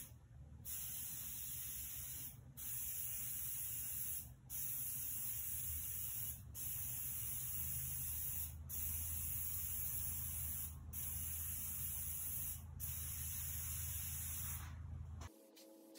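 Preval sprayer's aerosol power unit hissing as it atomizes thinned oil-based enamel, in repeated passes of about two seconds each with brief breaks between them. The spraying stops about fifteen seconds in.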